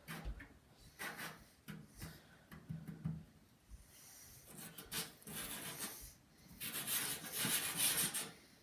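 Damp sponge loaded with baking soda being rubbed over a computer case panel, in a series of short rubbing strokes and a longer, louder stretch of scrubbing near the end.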